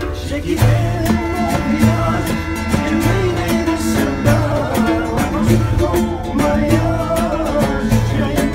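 Acoustic guitar, oud and hand-held frame drum playing a song together while men sing. The drum keeps a steady beat about once a second under the strummed and plucked strings.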